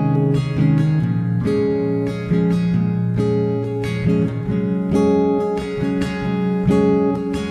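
Background music: acoustic guitar strumming and picking chords with a steady beat.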